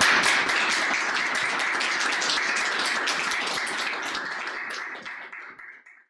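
Applause, a dense crackle of many hands clapping, fading out over the last couple of seconds.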